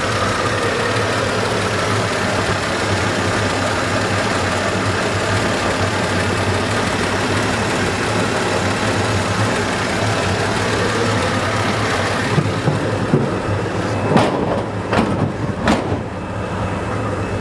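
1951 Chevrolet 3100's Thriftmaster straight-six with a single-barrel carburetor idling steadily, heard close up from the engine bay. The high hiss over the idle falls away about twelve seconds in, and a few sharp clicks come near the end.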